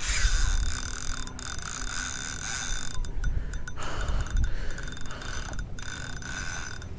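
Spinning reel's drag buzzing steadily as a large hooked fish pulls line off, stopping briefly a few times, with wind rumbling on the microphone.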